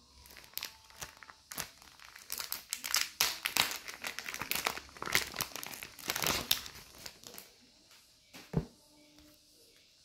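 Clear plastic sticker packet crinkling as it is handled and a stack of paper stickers is pulled out of it, a dense run of irregular crackles through the middle, followed by a single thump near the end.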